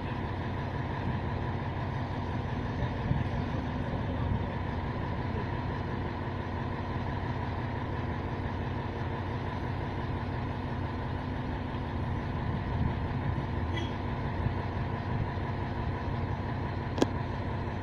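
Diesel engine of a truck-mounted crane running steadily as it holds a motor boat on its slings over the water. A single sharp click near the end.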